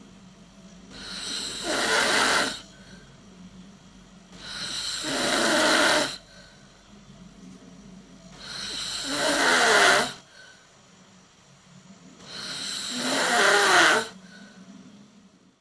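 A person snoring: four snores about four seconds apart, each growing louder over a second or two and then breaking off sharply, with quiet breathing between.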